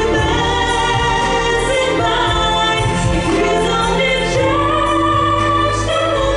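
Singing over an instrumental backing track, with long held and gliding notes above a steady bass line.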